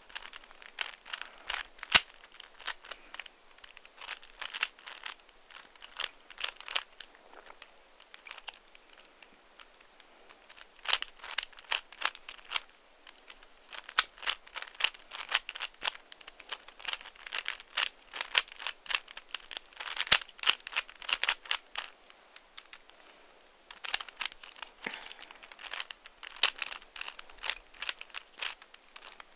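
Plastic Dayan 3x3 speed cube being turned fast by hand: its layers clicking and clacking in quick runs, broken by a few short pauses.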